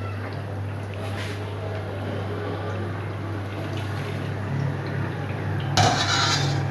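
Hot oil sizzling in a karahi around a frying chicken kachori, over a steady low hum. Near the end a wire skimmer goes into the oil and the sizzle briefly gets louder and sharper.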